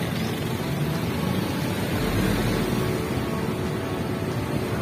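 Steady low rumble of wind and road noise picked up while cycling along a street, with a car driving just ahead.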